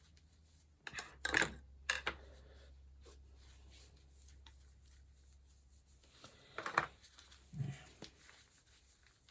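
A few light clicks and taps of small items being handled on a desk, gel polish bottles and swatch sticks being picked up and set down, over a faint low hum.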